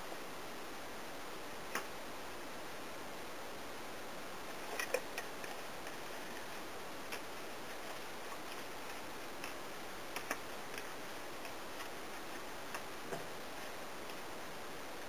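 Wire whisk stirring chocolate chips in a steel bowl set over a saucepan as a double boiler, with scattered light clicks of metal on metal and a small cluster of them about five seconds in, over a steady hiss.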